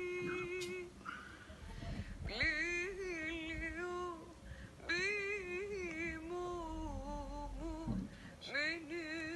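A single voice chanting a slow, melismatic liturgical melody, holding long wavering notes in three phrases separated by short breaths.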